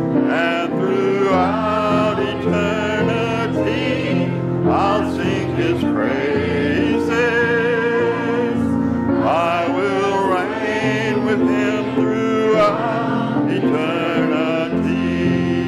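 A church congregation and choir singing a hymn together, led by a song leader, over held instrumental accompaniment.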